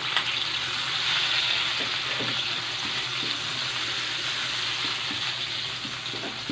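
Chopped garlic, onion and bird's-eye chilies sizzling steadily in hot oil in a wok while being stirred with a metal spoon, with scattered small ticks through the hiss.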